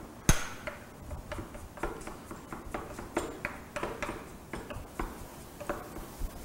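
Kitchen knife chopping garlic very fine on a cutting board: irregular sharp taps, about two or three a second, the first the loudest.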